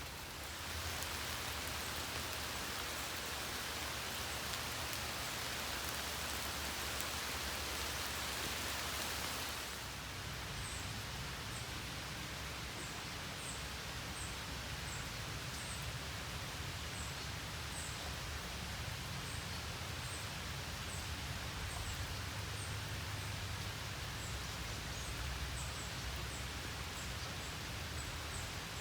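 Steady rain hiss for about the first ten seconds. It then eases off into softer outdoor ambience with a low rumble, and a small animal repeats a short, very high chirp about once or twice a second.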